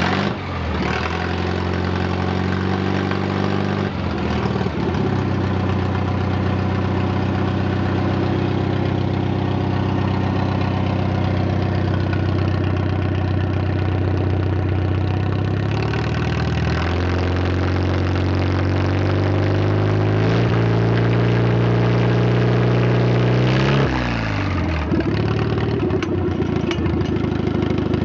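The 1962 Farmall 140's four-cylinder gasoline engine runs cold on extra choke, through a straight exhaust pipe. Engine speed is unsteady: it dips twice in the first few seconds, then climbs slowly from about halfway through and falls back with a few seconds left.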